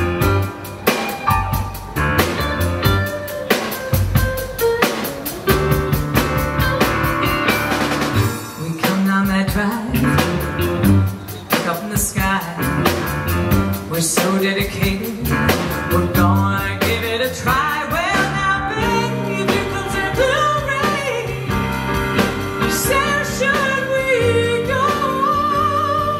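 Live blues band playing: upright bass, drum kit, electric guitar and electric keyboard.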